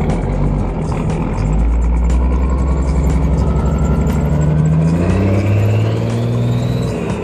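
Cummins twin-turbo diesel pickup with exhaust stacks accelerating, its engine note climbing while a turbo whistle rises steadily in pitch over several seconds. The revs drop just before the end.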